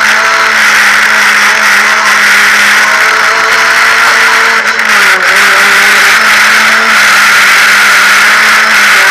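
Renault Clio Cup race car's four-cylinder engine running hard under racing load, heard from inside the stripped cabin with loud wind and road noise; the engine pitch holds mostly steady and dips briefly about five seconds in.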